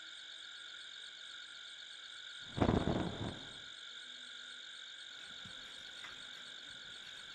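A steady, pulsing chorus of frogs, with a single dull thump about two and a half seconds in.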